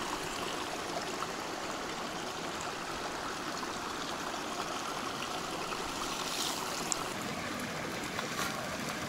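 Small rocky creek running and trickling, a steady, even burble of water.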